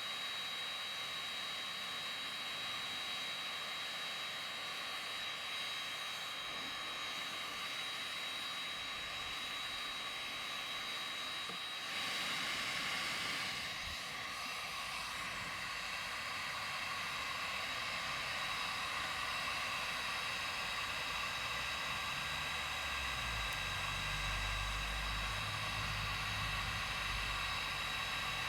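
A small high-speed motor, such as a power tool's, running steadily with a thin high whine over a noisy hiss. Its pitch and loudness shift about twelve seconds in, and a low rumble joins near the end.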